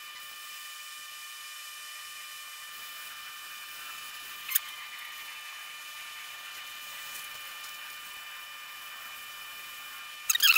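Small handheld butane torch hissing steadily as it heats a copper cable lug, with a single sharp click about halfway through. Near the end comes a quick run of sharp, falling squeaks, the loudest sound here.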